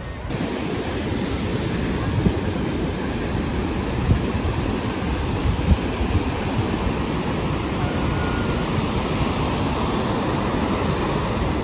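Steady rush of ocean surf and wind, with a few brief low thumps of wind buffeting the microphone.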